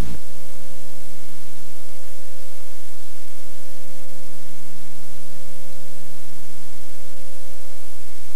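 Steady hiss with a low hum and a few thin steady tones, the noise of a blank stretch of old videotape once the recorded sound has stopped.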